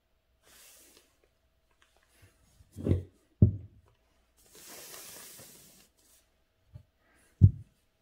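Soft swish of an ink calligraphy brush on paper about half a second in. Then two dull thumps around three seconds, a soft rustle, and another thump near the end; these are the loudest sounds.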